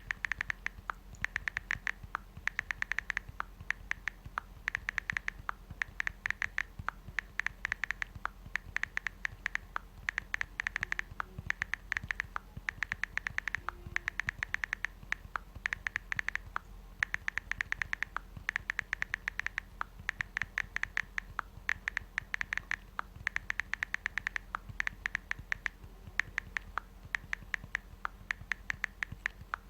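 iPhone keyboard clicks from typing a text message: quick runs of sharp clicks, several a second, broken by short pauses as in natural typing.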